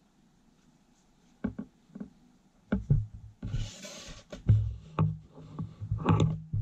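Steel ruler and marker handled on paper over a tabletop: a series of knocks and taps as the ruler is lifted and set down, with a brief sliding rustle across the paper about three and a half seconds in.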